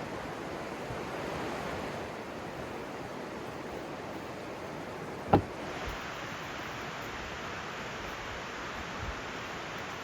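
Steady rushing flow of a river. About five seconds in comes a single sharp crack that stands out above the water.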